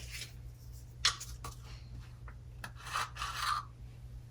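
Baking powder being measured out with a teaspoon: a sharp tap, a few light clicks, then a short dry rubbing scrape about three seconds in.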